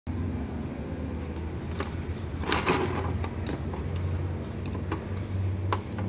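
Metal blade prying and scraping at a pin connector on a circuit board: scattered sharp clicks and one longer scrape about two and a half seconds in, over a steady low hum.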